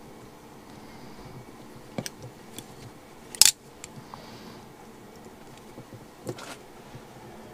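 Pliers working the steel split pins on a motorcycle foot peg assembly: a few scattered small metal clicks and clinks, the sharpest about three and a half seconds in.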